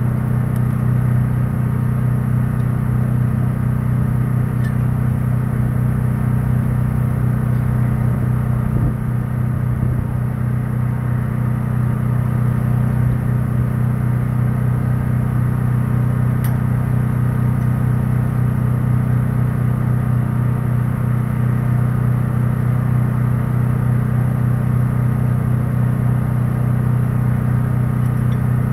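Engine running steadily at idle, a constant low hum with no change in speed.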